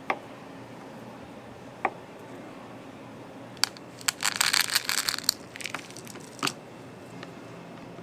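A knife blade clicks twice against a plastic cutting board while slicing banana. Then chocolate chips rattle as they are poured out of a plastic tub into its plastic lid, a dense patter of small clicks starting about three and a half seconds in, the loudest part, tailing off into a few scattered clicks.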